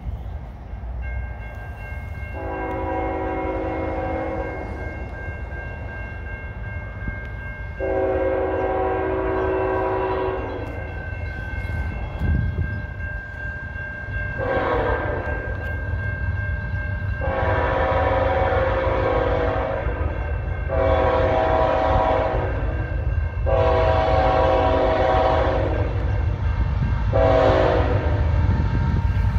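A GE ET44AC freight locomotive sounds its multi-note air horn in the grade-crossing pattern, long, long, short, long, then starts the sequence again. A crossing bell rings steadily underneath, and the low rumble of the approaching train grows louder.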